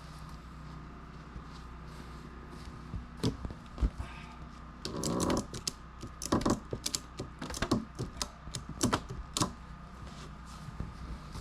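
Irregular sharp clicks and knocks, a dozen or so, some in quick clusters, from a heavy log and its strap being worked by hand. A short scraping rush comes about five seconds in.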